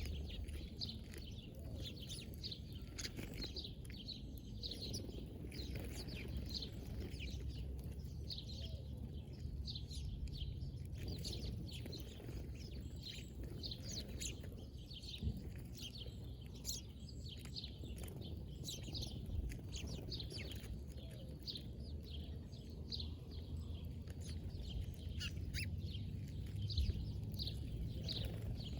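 Many small birds chirping, short quick falling notes overlapping one another without pause, over a steady low rumble.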